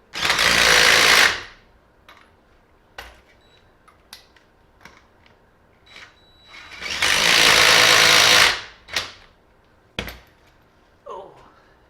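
Impact wrench hammering on wheel lug nuts in two bursts of a second or two each, the second one longer, with small clicks and knocks of the socket and nuts between them.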